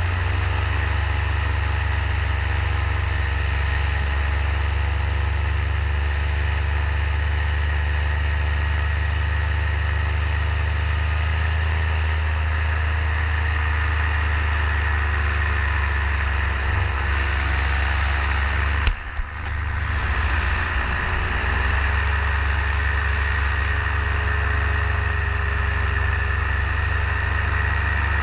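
Paramotor engine and propeller running steadily in flight, with an even drone. About two-thirds through there is a sharp click and a short dip in the sound before it picks back up.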